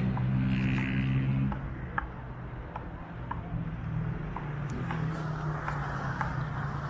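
An engine running with a steady low hum, loudest for about the first second and a half, then fainter.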